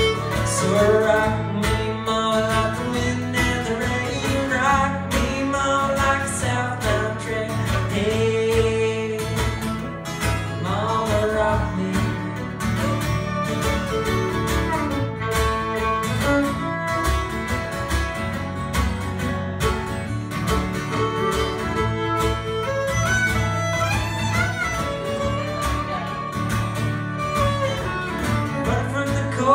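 Live acoustic folk-bluegrass band playing a song: strummed acoustic guitar, fiddle and a second plucked string instrument, with a man singing.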